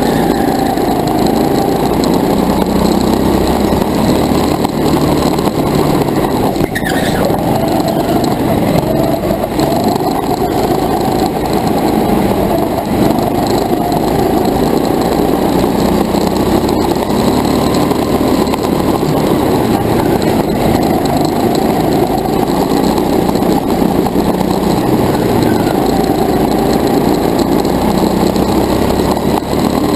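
Go-kart engine running hard through a race lap, heard from a camera mounted on the kart, its pitch rising and falling a little with the corners over a constant rumble.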